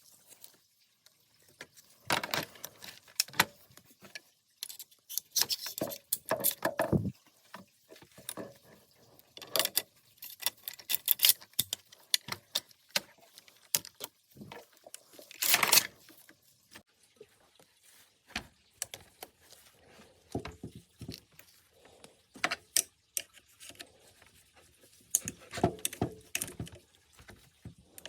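Intermittent metallic clicks and rattles of rifle parts being handled, with a longer clatter about fifteen seconds in.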